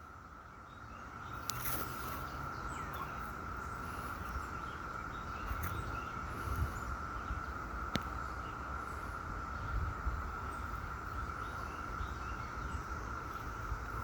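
Chorus of cicadas: a steady, unbroken drone on one high pitch, swelling up over the first second or two. A low rumble and a couple of sharp clicks sit beneath it.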